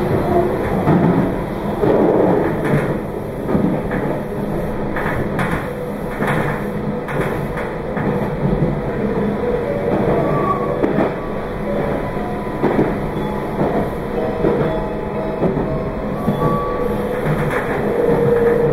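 Meitetsu 2200 series electric train running, heard from inside: a steady rumble of wheels on rail with a low hum and irregular clicks of the wheels over rail joints.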